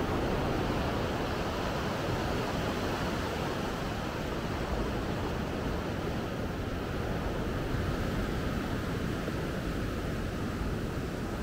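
Steady wash of surf on a sandy beach, mixed with wind rumbling on the microphone.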